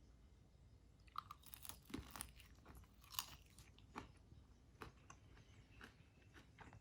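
A person biting into and chewing a sauced chicken wing: a quiet, irregular run of small crunches and wet clicks, loudest about two and three seconds in and thinning out toward the end.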